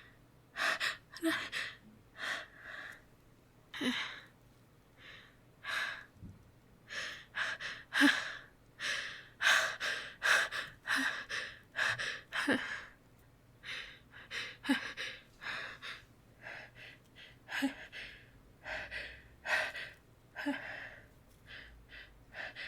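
A woman's pre-sneeze gasps: a long run of short, sharp, hitching breaths, one or two a second with brief pauses, as a sneeze builds up.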